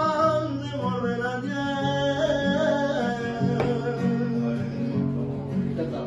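Live flamenco-style singing over two nylon-string acoustic guitars strumming. The voice holds a note at the start and drops out about three seconds in, leaving the guitars strumming on.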